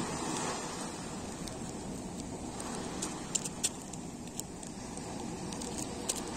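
Sea waves washing in and out on the shore, a steady surf noise that swells and eases, with a few sharp clicks about halfway through and near the end.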